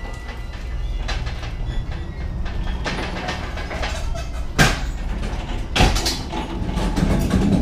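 Pallet truck being worked on a lorry trailer's floor: a steady rolling rumble and rattle, with two sharp clattering bangs just past halfway, about a second apart.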